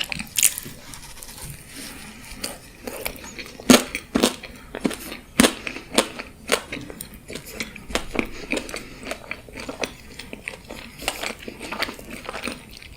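Close-miked ASMR eating: irregular crisp bites, crackles and chewing, the loudest crunches about four and five and a half seconds in.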